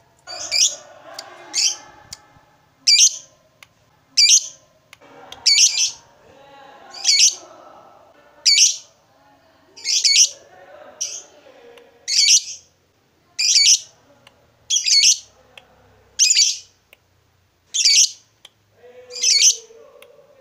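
A Fischer's lovebird calling: short, shrill calls repeated about once every second and a half, with softer chattering twitter between some of them.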